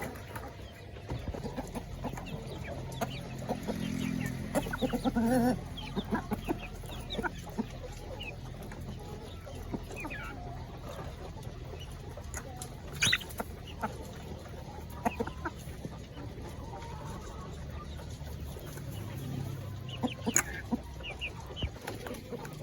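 Village chickens clucking and calling while they feed, with short sharp clicks and knocks throughout; one loud sharp sound about 13 seconds in.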